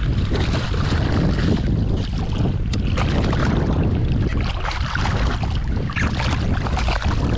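Steady wind rumble on the microphone over moving water, with a small hooked bass splashing at the surface near the start as it is reeled in.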